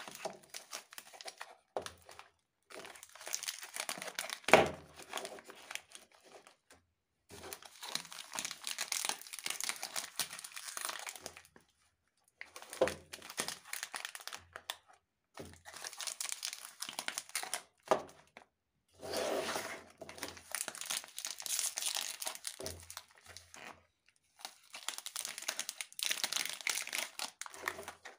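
Plastic wrappers of Treat Jim Jam biscuit packets crinkling in repeated bursts, with short pauses, as the packets are handled and laid in rows. A sharp knock about four and a half seconds in is the loudest sound.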